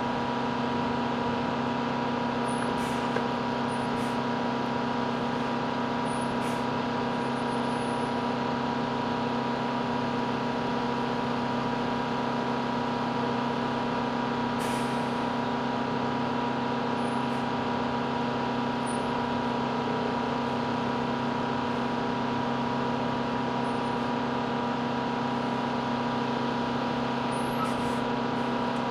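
Steady, unchanging drone of running aircraft machinery beside a parked C-130J, a constant mid-pitched tone layered over a lower hum.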